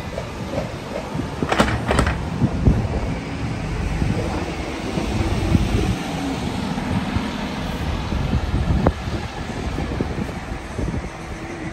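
Road traffic: cars and a city bus driving past close by, a steady low rumble. Two sharp clicks come a little over a second and a half in.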